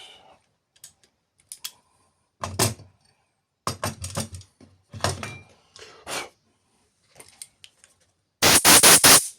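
Metal parts and tools being handled on a workbench: scattered knocks and clinks. Near the end comes a quick, louder rattle of about five metal clatters.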